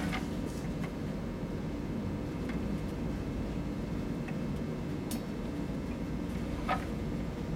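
Steady low background hum, with a few light taps and clicks as small wood pieces are set against a miter saw's metal fence; the clearest click comes near the end.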